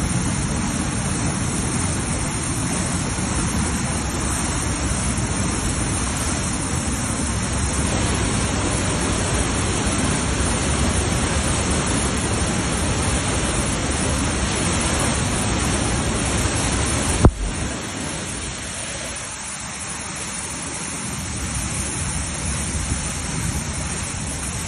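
Flash-flood torrent of muddy water rushing through a rocky wadi: a loud, steady rush of water. A sharp click comes about seventeen seconds in, after which the rush is a little quieter.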